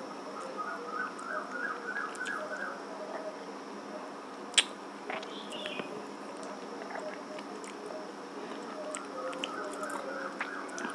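Wet mouth sounds of a person eating a ripe mango by hand: biting into the flesh, sucking it off the skin and chewing, with small smacks and a sharp click about four and a half seconds in.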